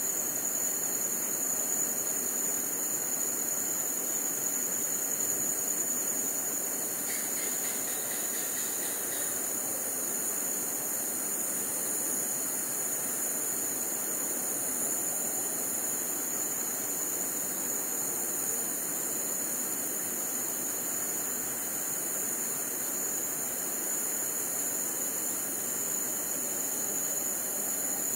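Crickets trilling steadily in high, even tones over a continuous low, rough roaring of howler monkeys.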